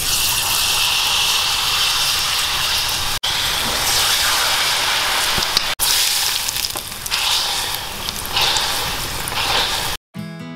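Hot oil sizzling loudly as a batter-coated, bread-wrapped ice cream ball deep-fries, with oil poured over it. Two brief gaps break the sizzle, and it stops abruptly near the end.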